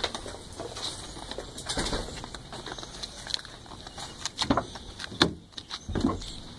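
Footsteps and a rustling blanket, then a car door handle and latch being worked, with a few sharp clicks and knocks in the last two seconds, the loudest a little past the middle.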